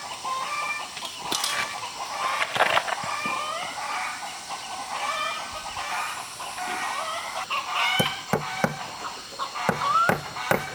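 Chickens clucking with short pitched calls, and several sharp knocks in the last few seconds.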